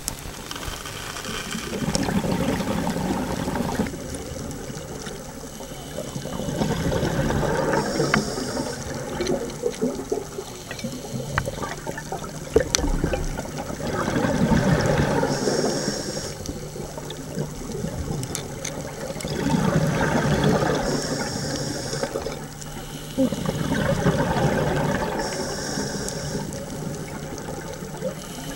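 Scuba diver breathing through a regulator underwater: a rush of exhaled bubbles swells about every five to six seconds, five times, alongside the hiss of the inhaled breaths. A faint steady hum runs underneath.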